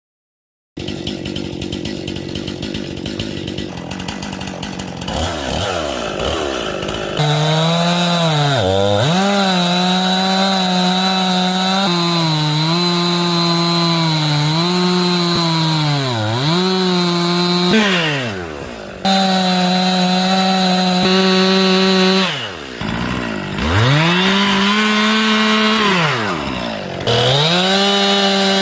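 Stihl two-stroke chainsaw running at high revs while carving wood. Its note sags briefly each time the chain bites in, then recovers. It drops off and revs back up twice, about two-thirds of the way in and near the end.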